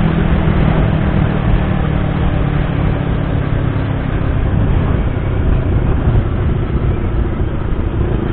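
Yamaha YZF-R25 sport motorcycle's parallel-twin engine running at cruising speed, under heavy wind rush on the microphone. Its hum is clearest in the first few seconds, then mostly wind and road noise.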